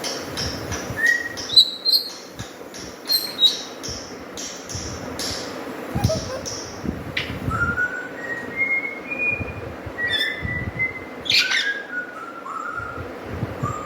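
A pet parrot whistling a string of short, clear notes, some stepping up in pitch and a few sliding down near the end, mixed with sharp clicks.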